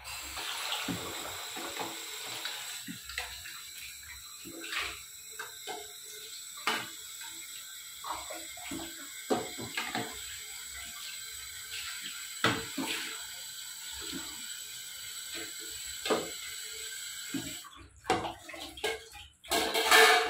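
Kitchen tap running steadily onto a stainless steel plate being rinsed by hand, with scattered clinks of steel dishes. The water stops about three-quarters of the way through, followed by louder clattering of steel pots near the end.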